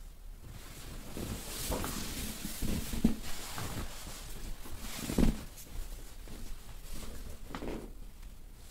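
Clothing and sheets rustling and shuffling under a dry massage over clothes, as the client's hip and leg are moved and pressed on a massage table, with a few soft thumps.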